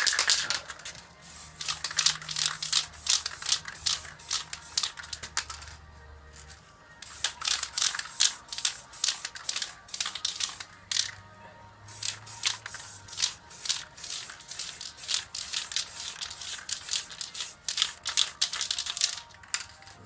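Aerosol spray paint can spraying gloss black in quick, hissing bursts, in three long runs with short pauses about six and eleven seconds in, over background music.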